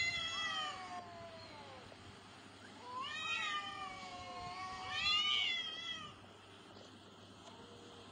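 Two cats yowling at each other in a standoff, the drawn-out, wavering threat calls of a cat fight about to start. One yowl trails off at the start, and two more rise and fall around three and five seconds in.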